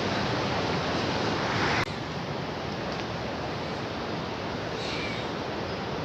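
Steady rush of flowing water, an even hiss, broken by a sudden cut about two seconds in before carrying on. A faint, short bird call comes near the end.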